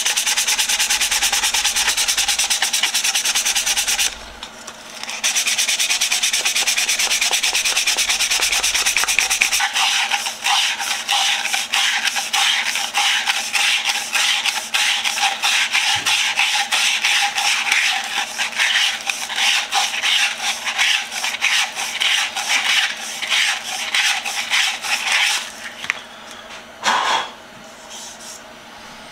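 Small wooden cylinder hand-sanded with 180-grit sandpaper: quick back-and-forth rubbing strokes that pause briefly about four seconds in and stop shortly before the end.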